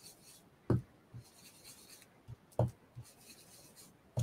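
Foam ink-blending tool rubbing and swishing ink through a stencil onto paper, with two soft thumps about a second and two and a half seconds in.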